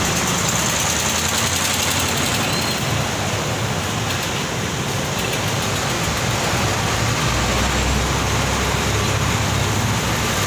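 Steady city street traffic: a jeepney, motorcycles, cars and a truck passing, with engines running and a constant wash of road noise. A deeper engine rumble grows from about two-thirds of the way through.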